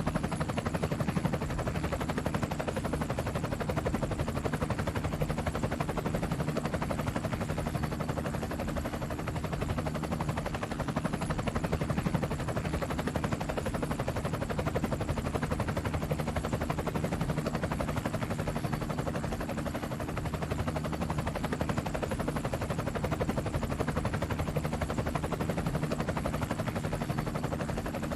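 Helicopter in flight: the rotor blades chop in a fast, steady beat over a constant engine hum.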